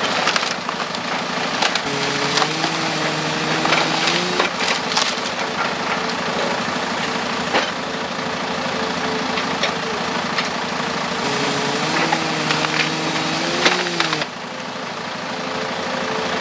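Excavator grapple crushing and tearing apart an uprooted tree's roots and branches, with repeated sharp snaps and cracks of splintering wood. Under it runs the excavator's steady drone, which rises in pitch twice as the grapple works.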